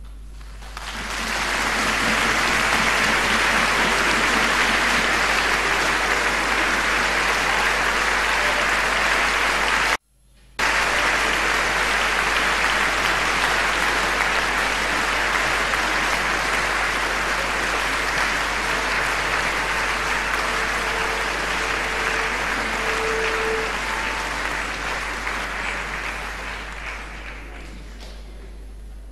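Concert-hall audience applauding, rising in about a second to a full steady clapping. It cuts out for an instant near the middle, then dies away near the end.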